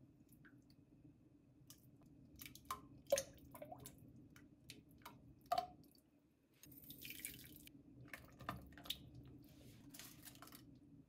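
Chunks of raw meat dropped with tongs into a pot of water, landing with faint plops and small splashes, with light clicks from the tongs. In the second half, further light clicks and knocks as more ingredients drop into the pot.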